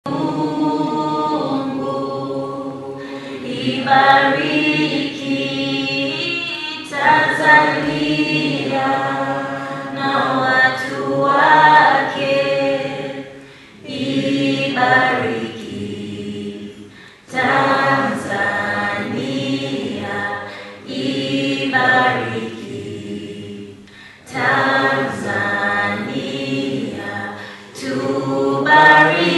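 Unaccompanied singing led by a woman's voice, in phrases of a few seconds separated by short breaths.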